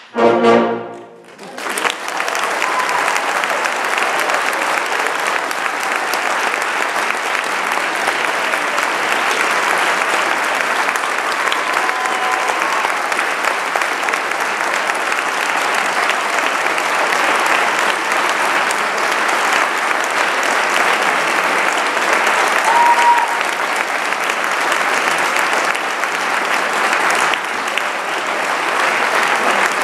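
A concert band's last chord stops about a second in, followed by an audience applauding steadily.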